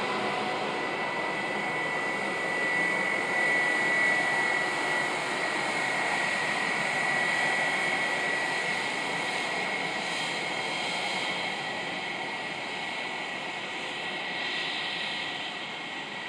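Airbus A320-232's two IAE V2500 turbofan engines running as the jet moves along the runway: a steady high whine over a broad rush of engine noise, easing off slightly near the end as the aircraft moves away.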